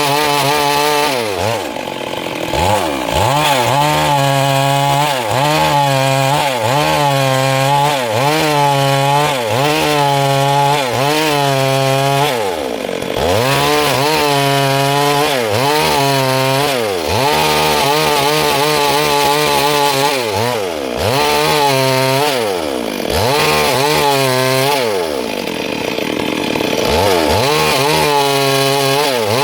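Stihl MS382 two-stroke chainsaw cutting wood, its engine pitch rising and falling every second or two as it loads in the cut and revs back up. The pitch drops much lower a few times.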